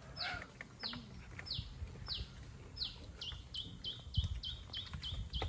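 A bird calling a series of short, clear, downward-sliding chirps, spaced out at first and then quickening to about four a second around three seconds in. A low thump sounds about four seconds in.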